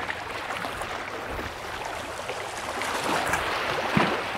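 Small bay waves lapping and washing against the shore as a steady rush of water, with a short louder thump near the end.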